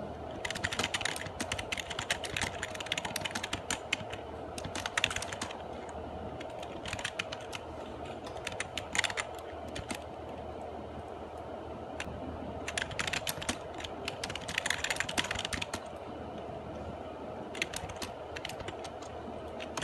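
Typing on a laptop keyboard: quick runs of key clicks in spurts of a few seconds, with short pauses between them.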